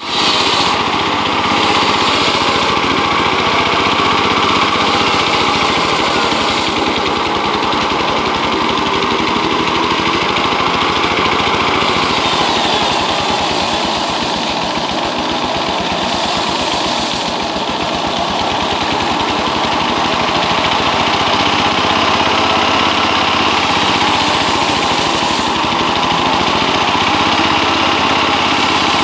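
A walking tractor's single-cylinder diesel engine runs steadily under load, driving a table-mounted circular saw that rips a log lengthwise. The engine's running and the blade's cutting noise blend into one loud, continuous din.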